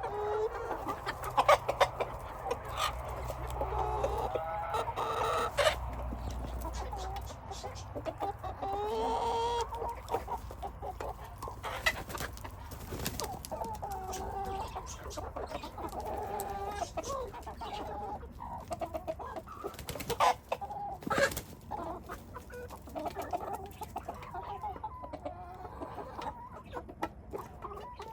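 A flock of chickens clucking continuously while feeding, many birds calling over one another, with sharp pecking taps now and then.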